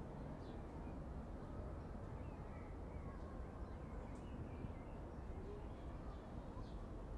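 Street ambience beside a park: a steady low hum of distant traffic, with small birds chirping and trilling now and then above it.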